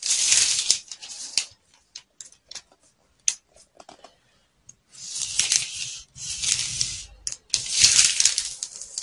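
Felt-tip marker scratching along a ruler on pattern paper in strokes of about a second each: one at the start and three close together from about five seconds in, with light taps and clicks in between.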